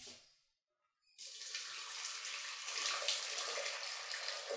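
Boiling water poured from a stainless steel kettle into a stainless steel pan of brown rice: a steady pour that starts about a second in.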